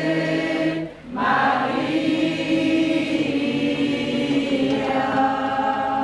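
A group of voices singing a slow hymn to the Virgin Mary in long held notes, with a short breath break about a second in before the next phrase.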